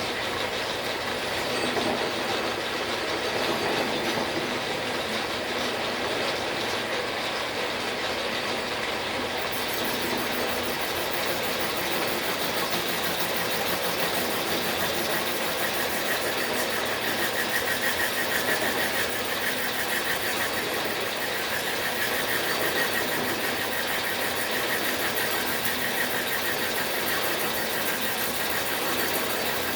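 Machine running steadily while a cutter takes one of sixteen indexed cuts in the thread dial gear blank on a Logan lathe. About ten seconds in, a higher hiss joins the cutting noise, and later a faint steady whine comes in.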